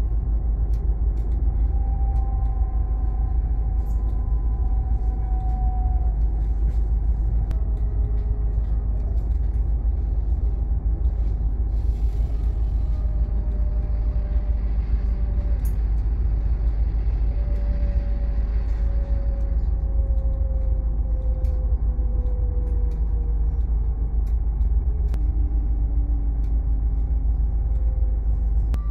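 Electric passenger train running, heard from inside the carriage: a steady low rumble with motor whines that glide slowly downward in pitch. Partway through, a hiss rises and fades as another train passes alongside.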